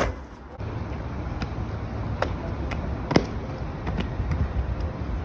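A thud as a parkour runner lands from a jump, then steady low outdoor background rumble with a few sharp footfall slaps on pavement, the loudest about three seconds in.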